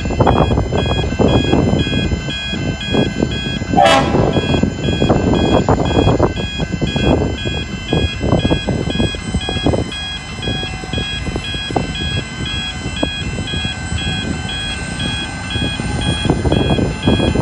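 Level crossing bells ringing steadily in a rapid, even pulse while a diesel freight locomotive rumbles toward the crossing. There is a short sharp high sound about four seconds in.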